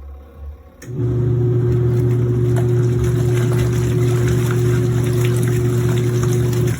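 Small portable washing machine's electric motor running with a loud, steady hum. It starts abruptly about a second in, after a low rumble, and cuts off just before the end.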